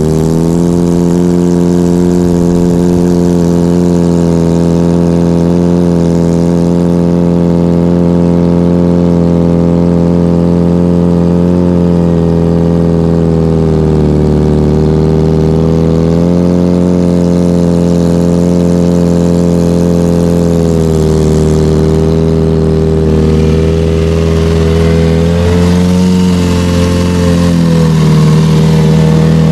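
Kawasaki Ninja sport bike's inline-four engine idling steadily through an aftermarket full-system exhaust with a LeoVince-style muffler, the engine speed dipping and rising slightly a few times and picking up a little, louder, near the end.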